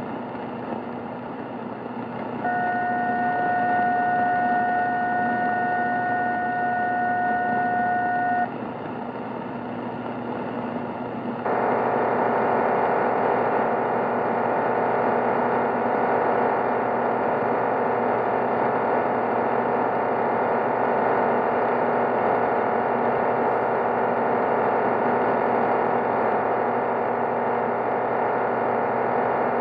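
Shortwave radio reception of a Cuban numbers station: steady hiss, with a steady chord of tones about two seconds in that holds for some six seconds and stops. About eleven seconds in, a louder, dense, even rushing signal comes on and runs on.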